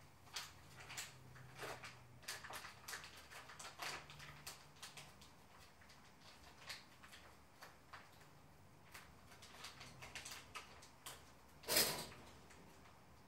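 Scattered light clicks and knocks of household movement, with one louder knock near the end.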